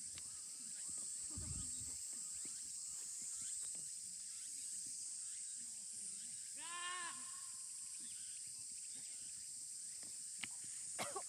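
Steady high-pitched outdoor insect chorus, with one drawn-out distant call about seven seconds in and a few faint clicks near the end.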